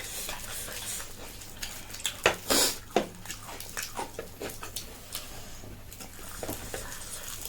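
Eating and tableware sounds: scattered light clicks of utensils against dishes and a few short noisy bursts of slurping or chewing, the loudest about two and a half seconds in.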